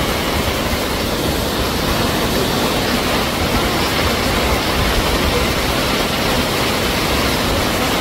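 Steady rush of a waterfall and stream, a loud even roar with a deep rumble underneath.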